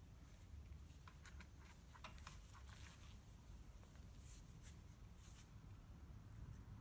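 Near silence: room tone, with a scatter of faint clicks and a few soft rustles.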